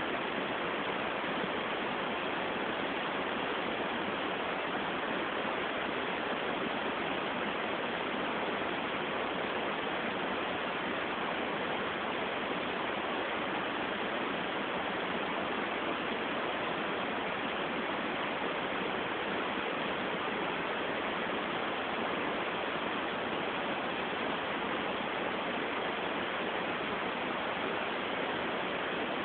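Steady, even hiss with no rise, fall or separate sounds standing out.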